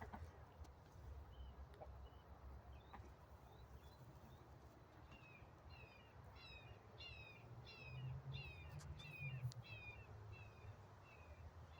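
A bird calling over and over in short, high, downward-slurred notes. The notes are faint at first, then grow stronger and come about two a second in the second half. A faint low rumble runs underneath.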